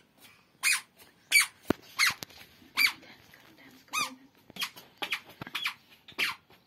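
Toddler's squeaky sandals squeaking with each step, a short squeak that falls in pitch, about one to two a second at an uneven walking pace.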